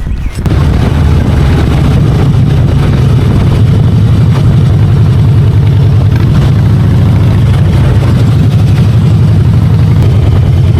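Harley-Davidson motorcycle's V-twin engine running steadily, coming in abruptly about half a second in.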